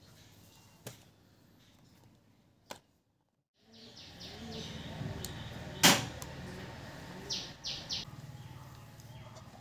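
Handling noise from a small homemade model generator box and its wheeled trailer: light clicks and knocks, with one sharp click about six seconds in. A low steady hum and a few short high chirps sit behind it.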